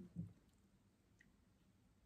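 Near silence: room tone, broken only by a brief soft sound just after the start.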